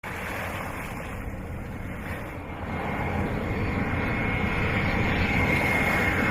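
Steady low, noisy rumble like an engine or aircraft, growing louder about halfway through, with a faint high steady tone coming in near the end.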